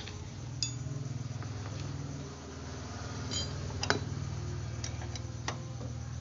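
Light metallic clinks and taps of a screwdriver against a scooter's front disc brake caliper: a few scattered strikes, the loudest about four seconds in, over a steady low hum.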